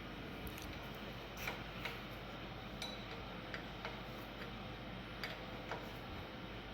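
Light metallic clicks and taps, irregular, about one or two a second: wrenches and fittings being worked while hydraulic hoses are threaded onto a loader's tilt cylinder.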